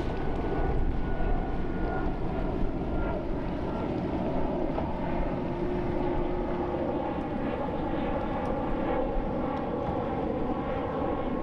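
A steady engine drone, with a faint tone that slowly falls in pitch over the first few seconds.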